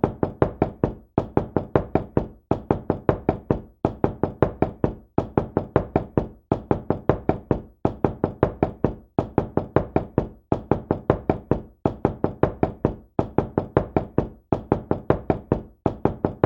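Knocking on a door: quick runs of about five knocks, each run followed by a short pause, repeating steadily about every 1.3 seconds.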